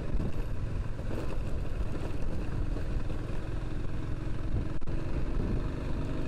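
Dafra Kansas 150 motorcycle's single-cylinder engine running steadily while riding, with wind noise over the phone's microphone.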